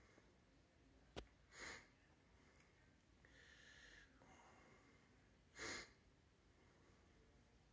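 Near silence in a quiet room, broken by a sharp click about a second in and two short breaths close to the microphone, about four seconds apart.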